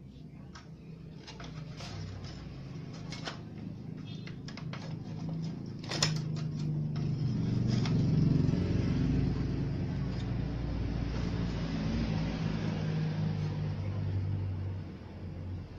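Light clicks and knocks of a TV circuit board being handled, with one sharper knock about six seconds in. Under them a motor vehicle engine hum builds up from about two seconds in and runs steady and louder, then drops off near the end.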